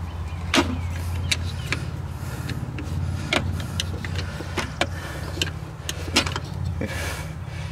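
Scattered sharp metallic clicks and clinks of a wrench working the brake line fittings on a car's brake master cylinder, over a steady low hum.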